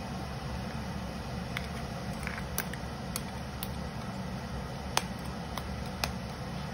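A metal ladle stirring vegetable stew in a stainless steel stockpot, knocking against the pot in scattered sharp clicks, the loudest about five seconds in, over a steady low rumble.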